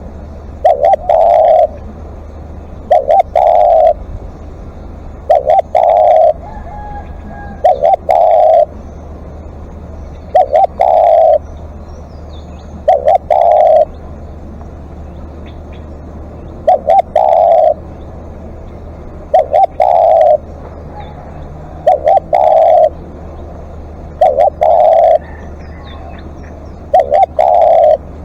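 Spotted dove cooing over and over. Each phrase is a short note followed by a longer rolling coo, repeated about every two and a half seconds, over a steady low hum.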